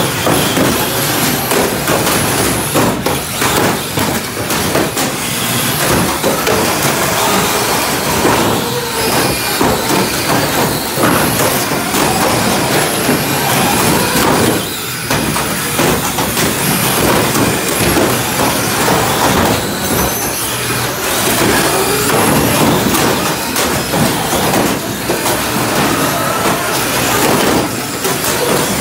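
Radio-controlled cars driving and ramming each other on a plywood floor: a continuous rumble of small wheels on the boards, thin motor whines rising and falling, and frequent clattering knocks of plastic bodies hitting each other and the arena walls.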